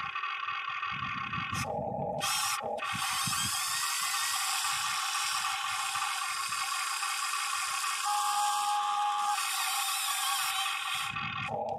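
Huina 580 RC excavator's small electric motors and gearboxes whining and ratcheting as it works, with a few low thumps in the first three seconds.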